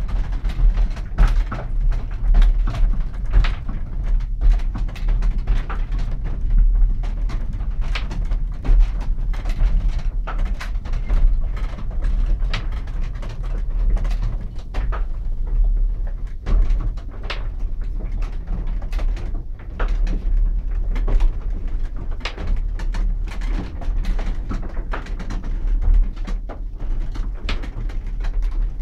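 Cap gearing of a running Dutch polder drainage windmill: the wooden-cogged brake wheel on the windshaft turning and meshing, a constant low rumble with a dense stream of small knocks and creaks. The gearing runs calmly and smoothly, its cogs well greased with lard.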